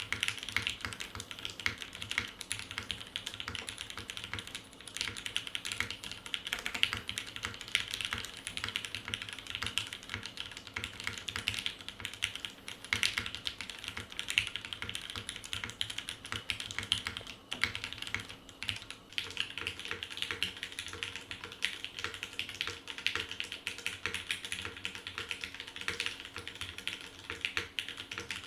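Continuous typing on an Anamnesis mechanical keyboard with Cherry MX Black linear switches: a steady, rapid clatter of keystrokes.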